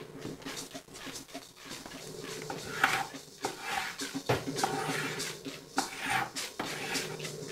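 Chalk scraping and tapping on a wooden tabletop as a pentagram is drawn, with small handling clatter of objects; a faint steady drone lies underneath.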